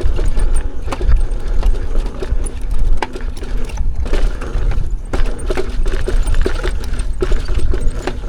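Riding an electric unicycle along a wet dirt trail in the rain: heavy wind rumble on the microphone with rapid, irregular clicks and knocks.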